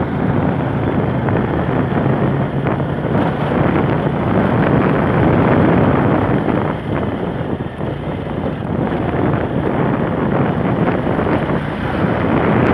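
Honda scooter engine running while riding, with heavy wind buffeting on the microphone, which is the loudest part of the sound.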